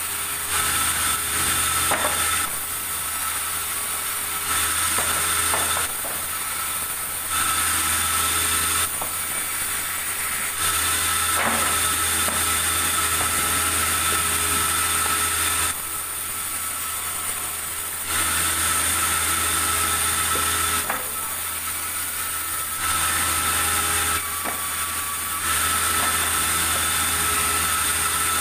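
Sawmill saw running and cutting wood: the sound steps up into a louder, steady high whine while the blade is in the wood, then drops back to the saw running free, about seven cuts of a few seconds each.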